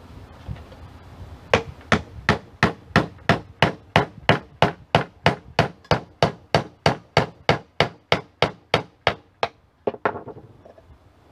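Hammer driving finishing nails into a treated pine board: a steady run of sharp strikes, about three a second, starting about a second and a half in and stopping near the end.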